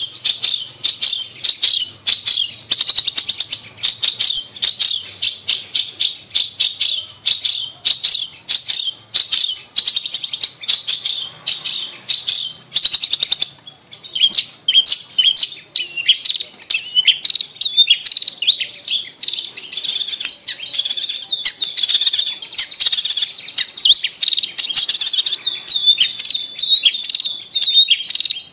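Long-tailed shrike (cendet) singing: a fast, unbroken stream of sharp chirps and trills. A short break comes about halfway through, after which the notes run on as quicker rolling trills.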